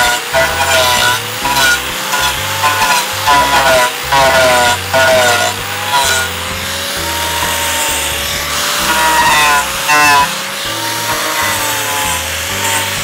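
Angle grinder with a bladed wood-carving disc cutting into the edge of a wooden board. The motor's whine dips and recovers in repeated short bites as the cutter grabs the wood. It is cutting only with the disc's outer edge because the adapter sits too high.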